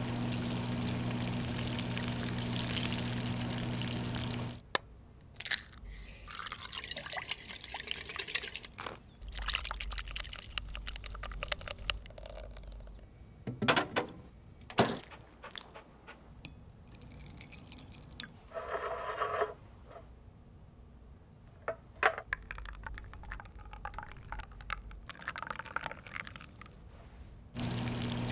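Oven fan humming steadily with hot oil sizzling around Yorkshire puddings and their batter baking in a muffin tin, cutting off about four and a half seconds in and returning near the end. Between these come short kitchen prep sounds: clicks, knocks, a brief tone and liquid pouring as the batter is made and put away.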